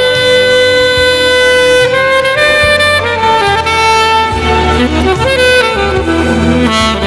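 Saxophone playing a ballad melody over a backing track with a steady bass line. It opens on one long held note of about two seconds, then moves through shorter, stepping notes.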